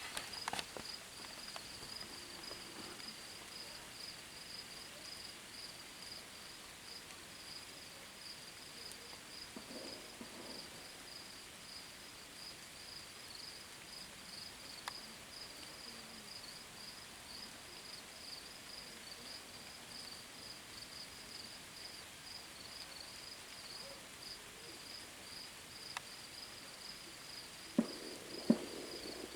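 Crickets trilling steadily in a fast pulsing high chirr. Near the end come two sharp bangs about a second apart.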